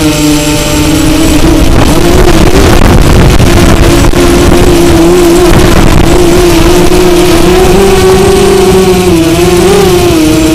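Drone's electric motors and propellers buzzing loudly, heard from its own on-board camera: a steady hum that wavers slightly in pitch as the throttle changes, over a rushing noise.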